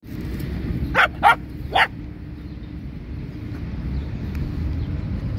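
A dog barking three short times, about a second in, during rough play. A steady low wind rumble sits on the microphone underneath.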